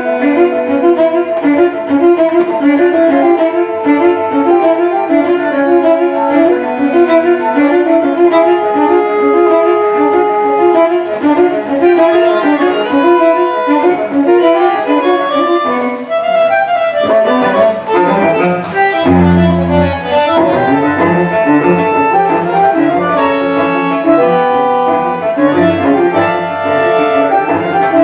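A bandoneon and cello duo playing a new-tango piece live, with busy, shifting melodic lines and a deep low note about two-thirds of the way through.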